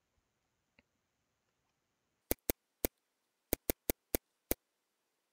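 Computer mouse button clicked eight times in quick, uneven succession, starting a little over two seconds in.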